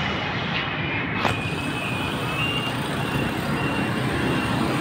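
Strong storm wind rushing over the phone's microphone, a steady noise with a short tap about a second in.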